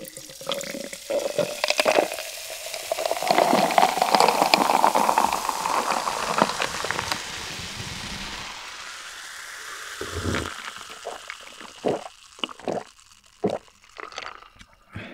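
Cola poured from a plastic bottle over ice into a glass jar, fizzing hard, with the pitch of the pour rising as the jar fills. About eight seconds in the pouring stops and the cola is drunk, with gulping and then a few short, sharp swallows near the end.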